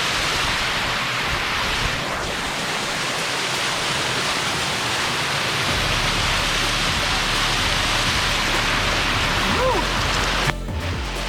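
Waterfall running hard after days of rain: a steady, loud rush of falling water. A short tone that bends up and down sounds near the end.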